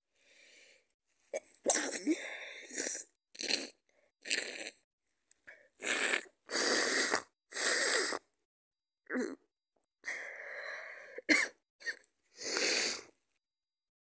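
A woman with a cold sneezing and coughing over and over: about a dozen separate bursts, some short and sharp, others longer. The sharpest come about two seconds in and again about eleven seconds in.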